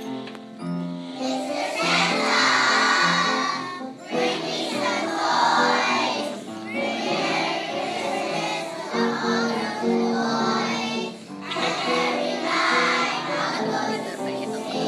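A group of kindergarten children singing a Santa Claus Christmas song together in phrases, over a steady instrumental accompaniment.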